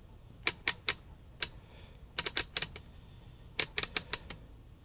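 Scattered sharp plastic clicks and taps, single and in small quick clusters, as the channel-number dial discs and plastic gears of a 1960s Sylvania colour TV's tuner dial assembly are handled and fitted together.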